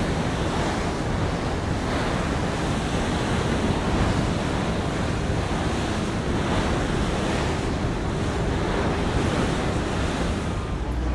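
Airbus A321 airliner's jet engines heard from below as it flies overhead: a steady, even rushing roar with no change in pitch.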